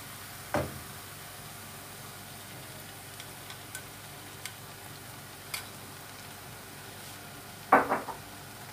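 Beaten egg frying with onion in a nonstick pan, a steady sizzling hiss. One sharp knock about half a second in, a few faint clicks, and a louder cluster of clatters near the end as the bowl and spoon knock against the pan.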